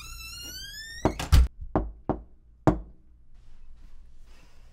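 An apartment door with a rising squeal just before it bangs shut, the loudest sound, followed by three sharp knocks on a door, the last a little after the other two.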